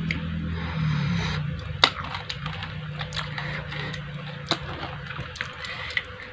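Close-up eating sounds: chewing with scattered sharp, crisp crunches and mouth clicks, about one or two a second. A low hum fades out in the first second and a half.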